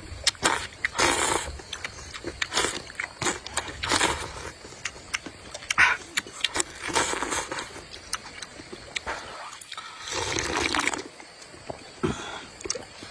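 A person slurping spicy rice noodles from a bowl of chili-oil broth in repeated wet slurps, the longest just after ten seconds in, with chewing and small mouth clicks between.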